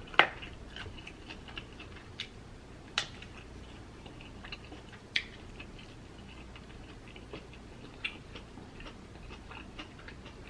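Quiet, close-miked eating sounds: a person chewing a mouthful of seafood and rice, with scattered sharp mouth clicks and smacks, the loudest just after the start.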